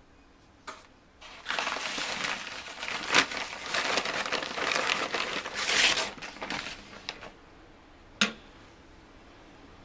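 Brown paper bag crinkling and rustling loudly as a sourdough loaf is pulled out of it, followed by a single sharp knock near the end.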